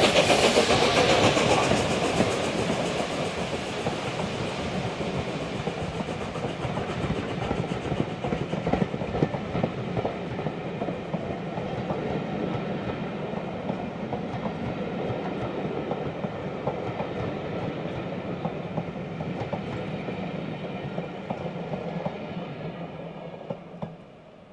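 Steam train hauled by LNER Class A1 Pacific No. 60163 Tornado passing: the locomotive's exhaust beat dies away over the first couple of seconds while the coaches roll by with wheels clicking over the rail joints, then the sound fades out near the end.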